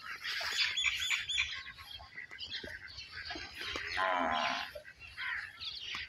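Many small birds chirping and twittering, with one louder, drawn-out pitched animal call about four seconds in.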